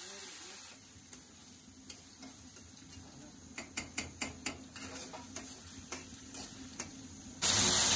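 A metal spatula stirring and scraping spices and chopped tomato in an aluminium kadai over a low frying sizzle, with a run of sharp clicks as it knocks against the pan. Near the end a sudden loud hiss starts.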